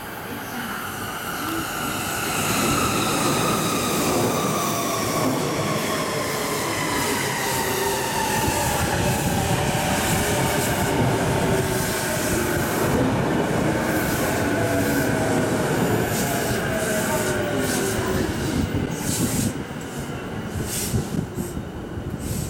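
JR East E233-series electric train arriving and braking into a station: the motor inverter whine falls steadily in pitch as the train slows, over the rumble of wheels on rail. Near the end the running noise eases off and a few sharp clicks sound as it comes to a stop.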